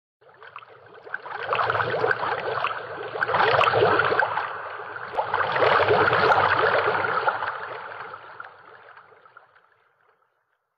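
Sound effect under an animated logo ident: a noisy, crackling rush that swells in, peaks twice and fades away near the end.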